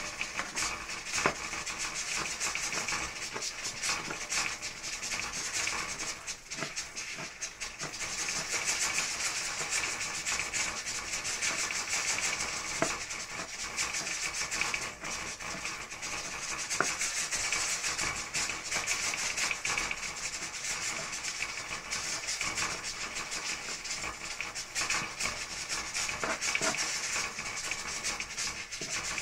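A kitchen knife chopping leafy green herbs on a plastic cutting board: a steady run of quick, light knocks and scraping, with a few sharper taps.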